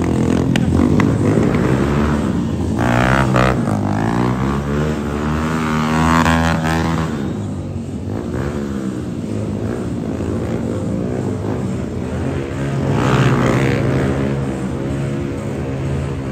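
Several motorcycle engines running and passing by, their pitch rising and falling as they rev and go past.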